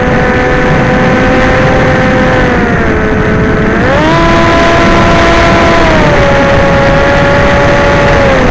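Electric motor whine of an FPV chase aircraft over heavy wind rush. The pitch dips about three seconds in, jumps up sharply at four, and steps down again near six seconds and at the end as the throttle changes.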